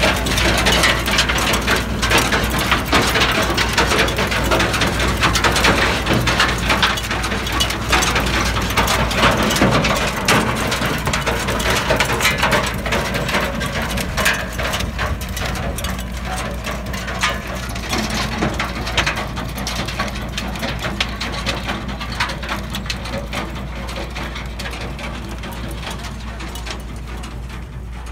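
Saga Dan Greenmaster 1620S stone picker rattling and clattering as it picks up stones and soil, over the steady low running of the Doppstadt Trac 160 tractor towing it. The clatter fades gradually as the rig moves away.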